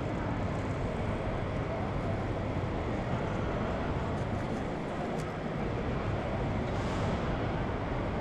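Steady rumbling background noise with a hiss, with a faint click about five seconds in.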